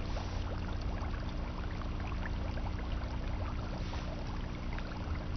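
Aquarium running: a steady low hum with water trickling and many small bubbling ticks.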